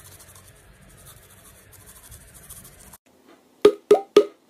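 Toothbrush scrubbing teeth: a faint, rapid scratching for about three seconds. Near the end, three short vocal sounds.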